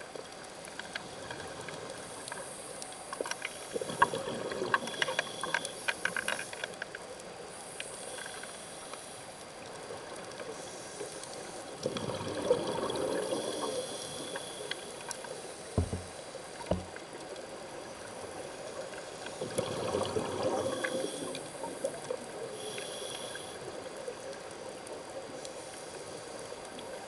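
Scuba diver's regulator breathing, heard underwater: three bursts of exhaled bubbles roughly seven or eight seconds apart over a steady hiss, the first with crackling bubble pops. Two short dull knocks come about halfway through.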